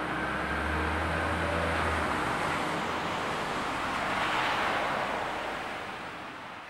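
Small hatchback car pulling away across a wet forecourt. A low engine hum lasts about two seconds, then an even hiss of wet tyre and road noise swells around four seconds in and fades toward the end.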